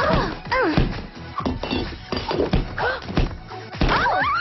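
A run of dull thunks and knocks, with short gliding vocal sounds in the first second and louder voices or music coming in near the end.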